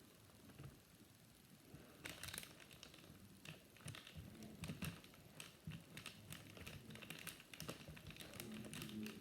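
Faint plastic crinkling and scattered small clicks of a white glue bottle being squeezed out into a small plastic pot, starting about two seconds in.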